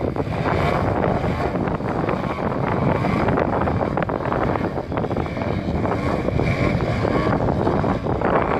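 Radio-controlled Extra 300 aerobatic model plane's engine and propeller running steadily while the plane hovers nose-up, the pitch shifting as the throttle is worked. Wind buffets the microphone underneath.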